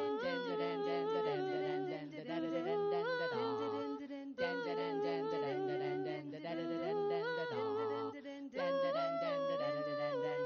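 Three women singing a cappella in close harmony into microphones, holding chords in phrases of a couple of seconds with brief breaks between them.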